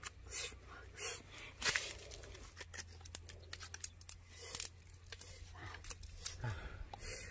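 Eating sounds: cooked fish being picked apart and chewed, a run of soft, irregular clicks and crackles over a low steady hum.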